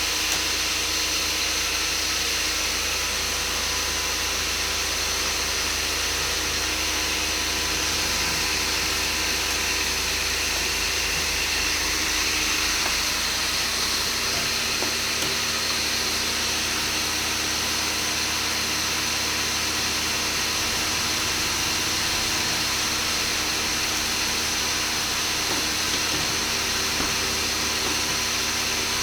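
DW 25 nail-collating machine, which welds nails into coils, running steadily with a hum, a few steady tones and a hiss. Its low hum shifts a little about halfway through.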